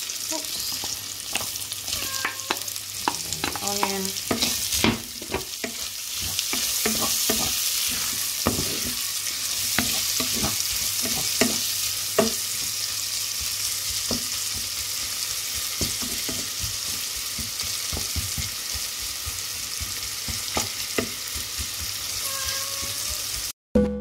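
Bacon and chopped onion sizzling in a frying pan, with a utensil clicking and scraping against the pan as they are stirred. The sizzle cuts off suddenly just before the end.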